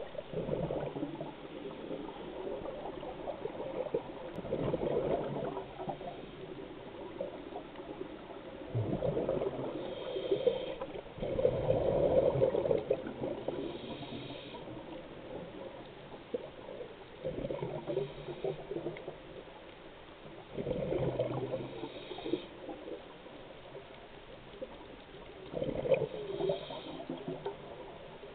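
Scuba diver breathing through a regulator underwater: bursts of exhaled bubbles about every four seconds, each lasting a second or two, over a steady low hiss.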